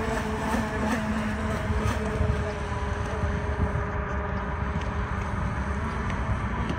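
Brushless electric motors of a radio-controlled model boat running at a steady speed, giving a whine whose pitch holds nearly level, over a low rumbling noise.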